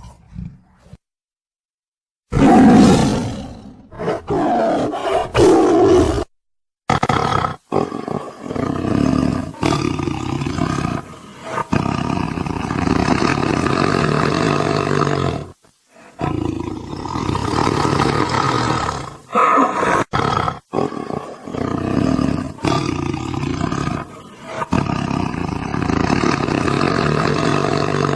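A tiger roaring over and over, starting about two seconds in: long, loud, rough calls with short breaks between them.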